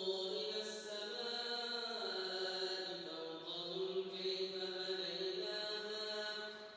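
Quran recitation: one voice chanting in slow, melodic tajweed style, holding long drawn-out notes that glide gently in pitch. The voice tails off briefly near the end.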